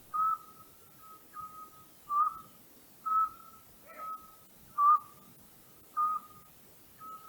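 An owl calling at night: a series of short, high whistled notes, about one a second, some louder and some fainter.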